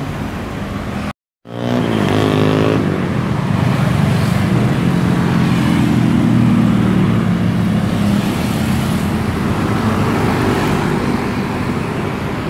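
Coach bus engine heard from on board while the bus drives through traffic. After a brief cut near the start, its pitch falls for about a second, then it runs steadily and loudly under road noise.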